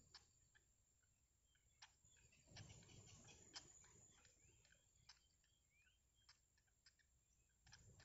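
Near silence, with faint irregular sharp ticks and a few soft high chirps about four to five seconds in from bittern chicks begging in the nest. A soft low rumble comes and goes near the middle.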